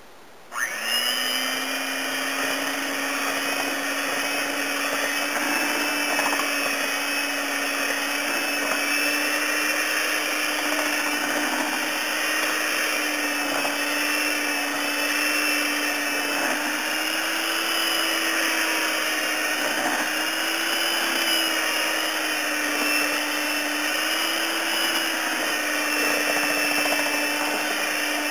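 Electric hand mixer running steadily, its beaters whirring through chocolate cheesecake batter in a mixing bowl. The motor starts within the first second, and its hum holds steady with slight wavers in pitch.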